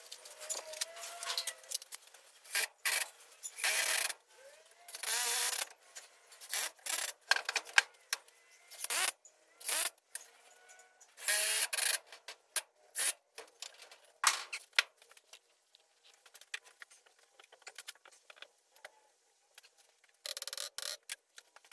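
Irregular clicks, knocks and short scraping and rubbing bursts, with a few faint squeaks: hand work and handling of tools and materials at a workbench.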